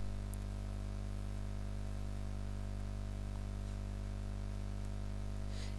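Steady electrical hum and buzz with a faint hiss, unchanging throughout: mains hum in the recording.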